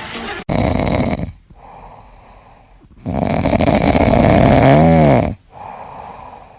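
A pet snoring loudly: two long rasping snores with quieter breaths between them, the second ending in a short whine that rises and falls about five seconds in.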